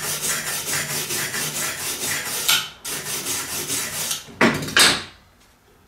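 Wire brush scrubbing soot off a fresh MIG weld on steel, in quick back-and-forth scraping strokes about four or five a second, with a short pause partway. Two loud knocks of steel near the end.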